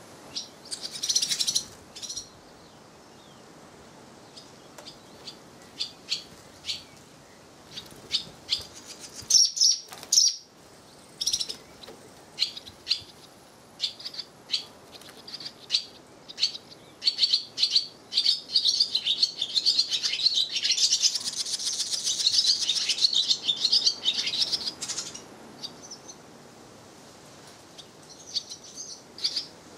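Swallows chirping and twittering at their mud nest with nestlings: scattered sharp high chirps, with a dense stretch of rapid chattering about two-thirds of the way through.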